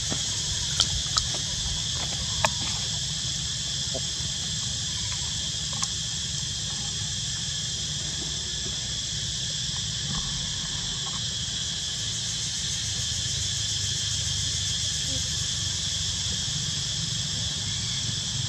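Steady, even chorus of insects shrilling on a high pitch, over a low steady rumble, with a few sharp clicks in the first few seconds.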